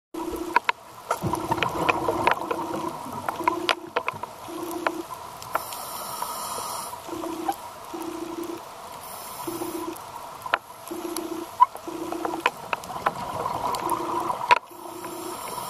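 Underwater sound picked up by a scuba diver's camera: hissing breaths through the scuba regulator every few seconds, scattered sharp clicks, and a low hum that pulses on and off in short bursts.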